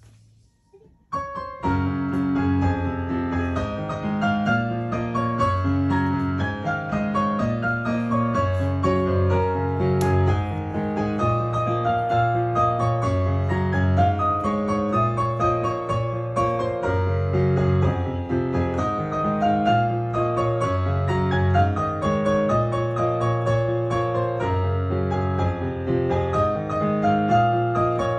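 Kawai piano being played, starting about a second in: a slow piece with low bass notes held under a moving melody.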